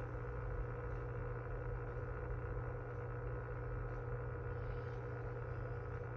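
QQ1500 external aquarium canister filter running with a steady hum, the motor-and-impeller noise that a new unit of this filter can make, typically traced to its impeller and shaft.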